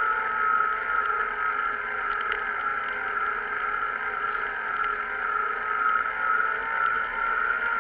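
Steady, muffled rush of wind and rolling noise picked up by a moving action camera, with a constant hum-like tone running through it.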